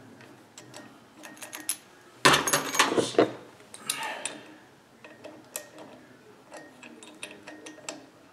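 Metal tools being handled on a steel tool cart: scattered clinks and clicks, with a louder metallic clatter about two seconds in as the flywheel puller is set down.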